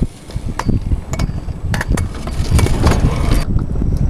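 Stunt scooter riding on a concrete ramp: wheels rolling with a low rumble, broken by several sharp clacks of the scooter landing and hitting the concrete, with wind rumbling on the microphone.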